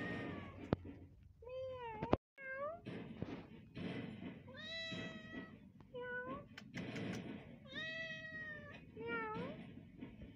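Kitten meowing over and over, about eight drawn-out, rising-and-falling meows, one after another. A single sharp click sounds about a second in.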